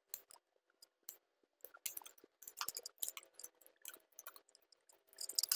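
Faint, irregular clicks and scrapes of a hand screwdriver turning a mounting screw in an in-wall Wi-Fi router's plastic faceplate.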